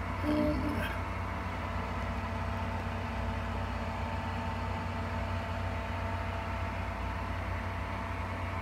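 Steady mechanical hum of a small electric motor running, a low drone with a few faint steady tones above it. A short pitched sound comes about half a second in.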